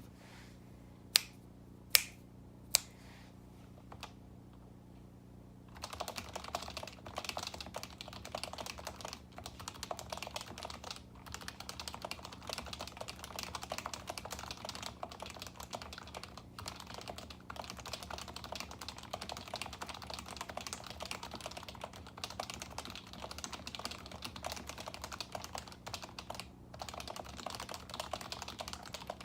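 Three sharp, loud clicks in the first three seconds. Then, from about six seconds in, steady fast typing on a lubed HHKB Professional 2 with Topre electrostatic capacitive switches, 45 g domes and a Hi-Pro mod, with a few brief pauses, over a faint steady hum.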